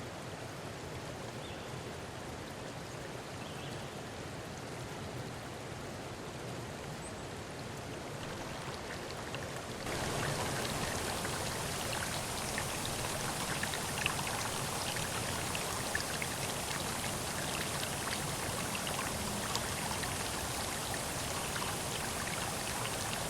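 River water flowing, a steady rushing with faint drips and splashes. About ten seconds in it becomes louder and hissier.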